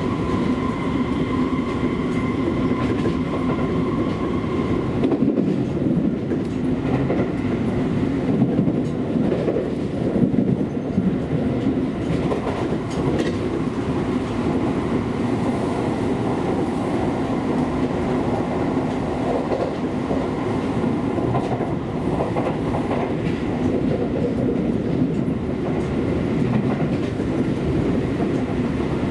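Seibu Railway electric commuter train running at speed, heard from inside the car: a steady rumble of wheels on rail with occasional clacks over rail joints. A steady whine sounds during the first few seconds and then fades.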